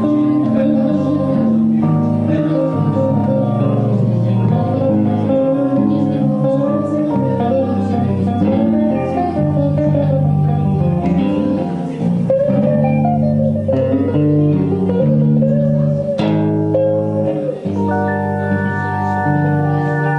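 An electric guitar, a Squier Stratocaster, and a keyboard playing an instrumental live, the guitar's lead notes bending up and down in pitch. Near the end the keyboard holds an organ-like chord.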